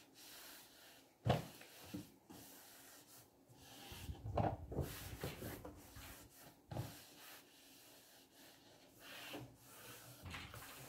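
A cloth rubbing and wiping a wooden wardrobe shelf and drawer front in several spells, with a sharp knock against the wood about a second in and a few lighter bumps later.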